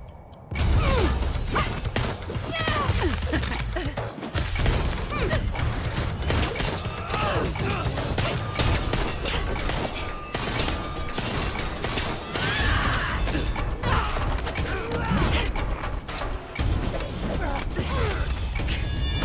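Animated fight sound effects: quick blade swings, metal clashes and heavy hits from scythes and a hammer, over driving battle music.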